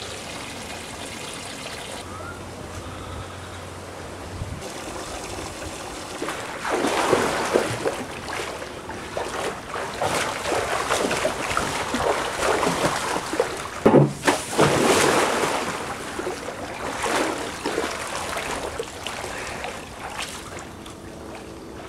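Water in a large tarp-lined backyard paddling pool being splashed about by a person moving through it, in repeated irregular splashes with one sharp, loud splash about two-thirds of the way through. The first few seconds hold only a quieter, steady water sound.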